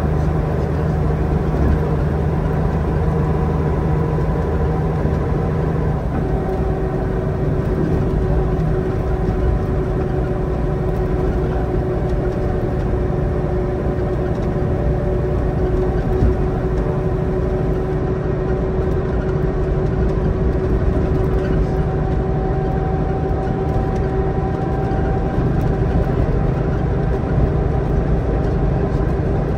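Leyland Olympian double-decker bus with an ECW coach body running under way at speed, heard from on board: a steady engine note over road and body noise. About six seconds in, the engine note drops a step.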